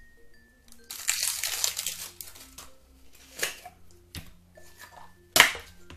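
Slime being squeezed and pulled by hand, giving crackly, crinkly noise: a long rush about a second in, a short crackle past the middle and a sharp, loud crackling snap near the end.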